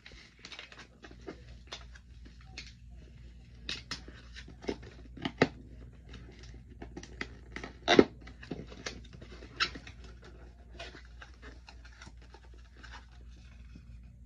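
Product packaging being handled and opened by hand: scattered rustles, scrapes and light taps, with a sharper knock about eight seconds in.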